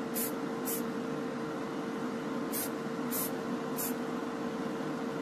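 Aerosol spray paint can giving five short squirts, each a brief hiss: two close together at the start and three more a little over halfway through. Underneath is the steady hum of the spray booth's fan.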